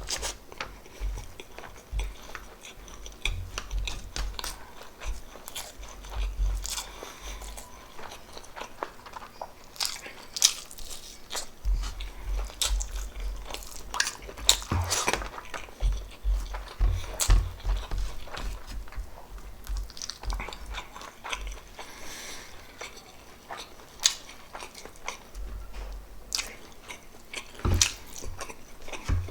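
Close-miked eating of pork adobo and rice: chewing and biting with wet mouth clicks and smacks scattered irregularly throughout.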